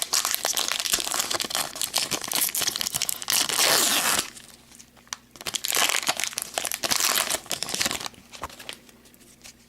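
Crinkling and tearing of a hockey card pack's wrapper as it is torn open and handled, in two long stretches of crackle with a pause between them.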